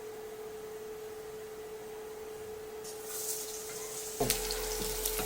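Hot oil in a frying pan begins to sizzle about three seconds in as food goes into it, growing louder with a few clicks and clatters near the end. A steady high-pitched hum runs underneath.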